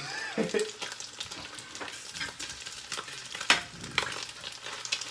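Egg frying in a pan, a steady sizzle full of small crackles and pops, with one sharper click about three and a half seconds in.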